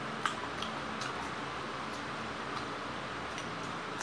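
A person chewing food with the mouth: a few short, wet smacks and clicks scattered through, over a steady background hiss.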